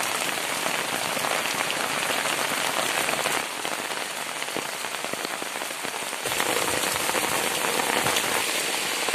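Heavy rain falling steadily, a dense hiss of countless drops splashing on roofs, wet ground and a tiled porch.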